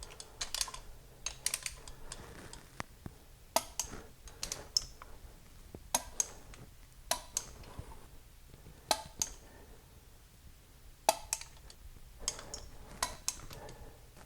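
Click-type torque wrench on the intake manifold bolts of an Oldsmobile 455 V8, giving sharp clicks as bolts reach the first torque setting of 15. The clicks come one or two at a time, every second or two, with tool and socket handling between.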